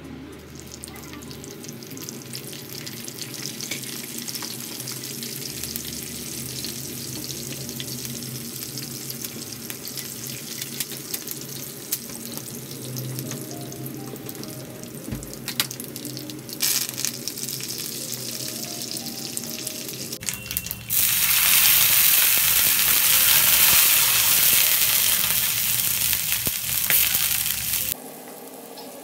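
Tadka frying in a nonstick pan: mustard seeds crackle and pop in hot oil as curry leaves and green chillies fry. About twenty seconds in, water goes into the hot pan and a much louder hiss takes over for about seven seconds, then stops abruptly.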